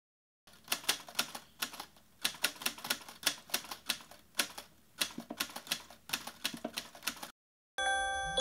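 Typewriter key clacks in quick, uneven runs with short pauses, a typing sound effect under on-screen text. It stops near the end, and music with bell-like mallet notes begins.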